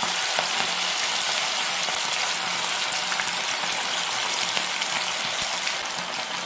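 Battered chicken pakoda pieces deep-frying in hot oil over a high flame: a steady, dense sizzle with small crackles and pops.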